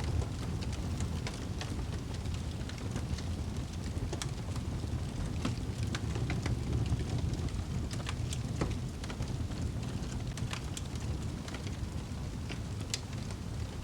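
Fireplace fire crackling: irregular sharp pops and snaps over a steady low rumble of burning.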